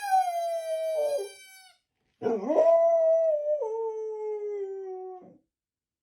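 Dog howling: two long howls, each sliding slowly down in pitch. The second drops a step in pitch about halfway through.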